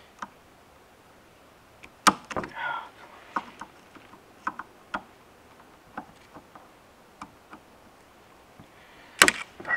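Snap-ring pliers working a steel C-clip off a T50 transmission output shaft: scattered sharp metallic clicks as the jaws slip and catch, with a loud click about two seconds in and a louder cluster of clicks near the end.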